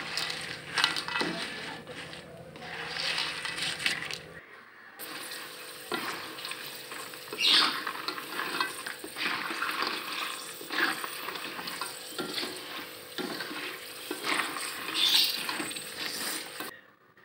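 Raw kerupuk crackers being stirred in hot, bubbling oil in a metal wok: a spatula scraping and turning the crackers, with the oil sizzling. Irregular scrapes and clicks run over a steady hiss, which cuts off abruptly about four seconds in and again near the end.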